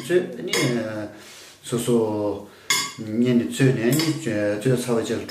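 Metal kitchen tongs clinking against a glass dish of cooked spaghetti as the pasta is lifted, in a string of sharp clinks, with a person talking over them.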